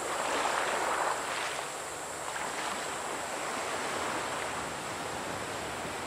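Small waves washing onto a beach: one wash swells in the first second, then a steady, soft surf.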